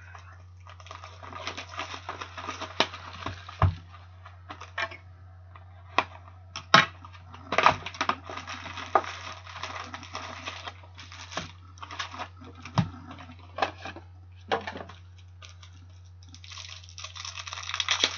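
A cardboard trading-card box being opened by hand and its plastic-wrapped packs unwrapped. The sound is crinkling and rustling of cardboard and plastic in several stretches, with sharp clicks and taps as the box and packs are handled.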